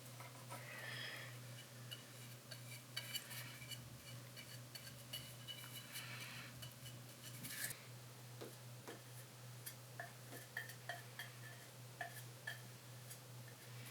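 Quiet handling sounds: scattered light clicks and a few brief ringing clinks, with a couple of soft scrapes, over a steady low hum.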